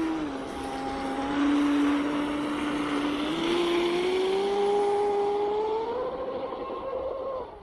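Pro Boat Blackjack 42 RC catamaran's brushless electric motor whining at speed, its pitch climbing steadily over several seconds, over the hiss of the hull running across the water. The whine stops suddenly near the end.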